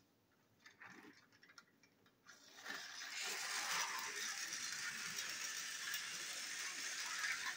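Battery-powered toy train engines running along plastic track: a steady mechanical rattling whir of small motors and gears that starts about two and a half seconds in, after a few faint clicks.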